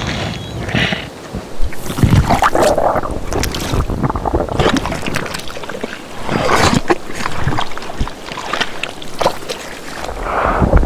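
Designed organic creature sound effects: a run of irregular noisy bursts, rustles and sharp clicks evoking a strange living organism, over a layer of background ambience.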